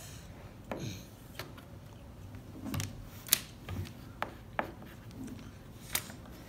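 Dry-erase marker writing on a small whiteboard: scattered taps and scratches of the felt tip on the board, the sharpest a click a little past three seconds in.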